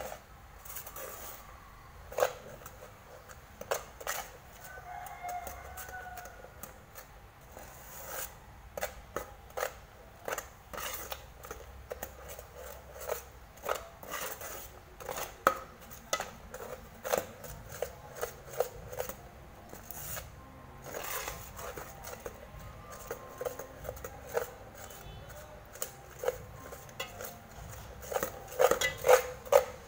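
Stainless steel spoon scraping and knocking against the inside of a metal pot while stirring thick caramel, an irregular run of clinks that comes thicker and louder near the end.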